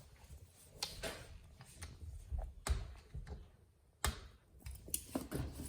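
Small metal clicks and scrapes, scattered and irregular, as the pointed blade of a nail clipper pries at a screw in a refrigerator door's glass panel to work it out.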